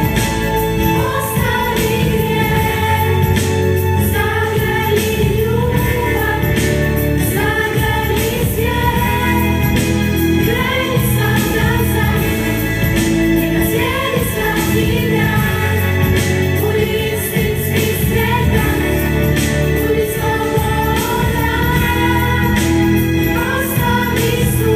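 Girls' vocal group singing a spiritual song into microphones, over instrumental accompaniment with sustained low notes.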